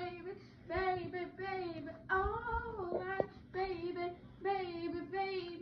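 A young girl singing unaccompanied in four short phrases, with brief breaks between them.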